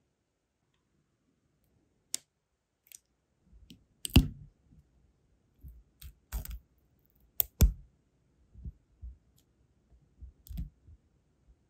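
Sharp, scattered clicks and taps from handling a brass wax-seal stamp and tweezers while leftover sealing wax is peeled off the stamp's face, with light fingertip handling noise between them. The loudest clicks come about four seconds in and again at about seven and a half seconds.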